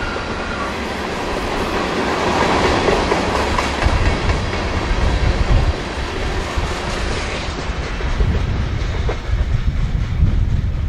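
A train rolling past close by: steel wheels running on the rails, with a deep rumble that grows heavier about four seconds in.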